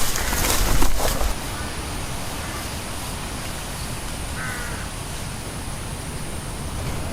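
Steady outdoor background hiss, with a louder rough rustling noise for the first second and one short bird call about four seconds in.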